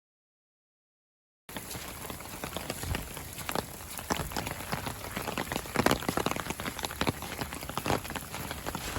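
Rain drumming on a polycotton tent, a dense patter of individual drop hits. It cuts in abruptly about a second and a half in, after complete silence.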